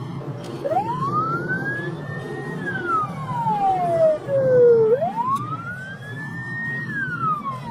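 Police car siren wailing: the pitch climbs, holds briefly and falls slowly, twice, over a steady low rumble of the car's engine and tyres on the road.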